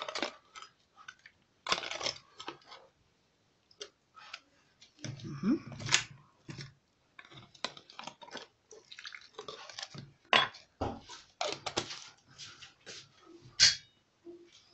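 A metal spoon scraping inside a glass jar and clinking against it and the bowl while scooping out chili paste, in irregular short scrapes and taps.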